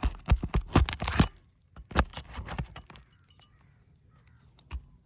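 A metal tool working under asphalt roof shingles to get at roofing nails: a quick run of sharp clicks and scrapes, a single louder clink about two seconds in, and one more click near the end.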